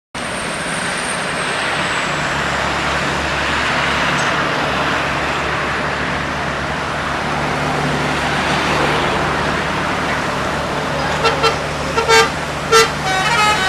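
Steady bus engine and road noise, then about eleven seconds in a 'telolet' musical bus horn starts: several short, pitched toots in quick succession.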